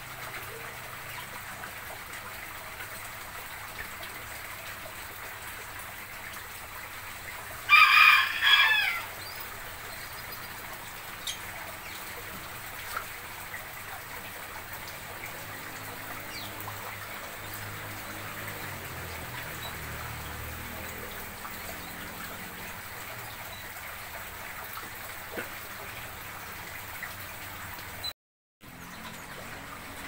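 A rooster crows once, briefly, about eight seconds in, over a steady background hiss.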